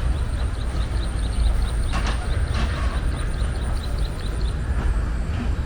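Outdoor park ambience: a steady low rumble, with a quick run of short high chirps, about five a second, lasting roughly four seconds, a faint steady high whine, and a couple of brief knocks about two seconds in.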